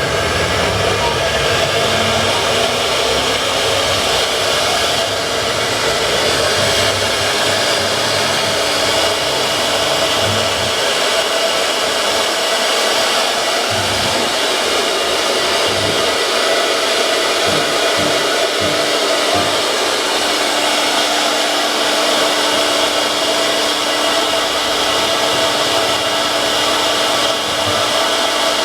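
Wood CNC router spindle running at speed: a steady high whine over a loud even hiss.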